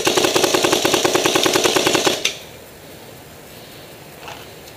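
Pneumag paintball marker fired in a rapid burst of about two seconds, roughly eight shots a second.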